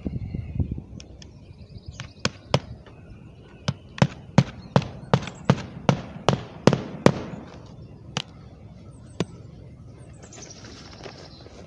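A run of sharp knocks or cracks, about three a second for several seconds in the middle, with a few scattered single knocks before and after.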